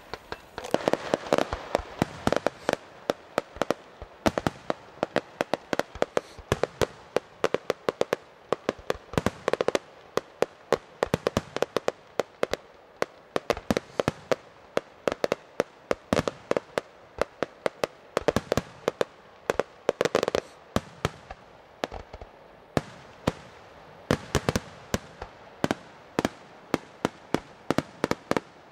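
Aerial fireworks display: shells bursting in a fast, irregular barrage of sharp bangs, several a second, with no let-up.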